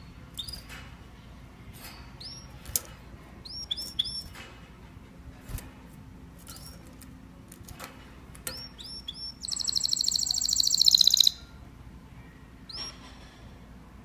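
Canary in full song: scattered short upswept chirps and clicks, then a loud, fast rolling trill of nearly two seconds about two-thirds of the way through, followed by a few more chirps.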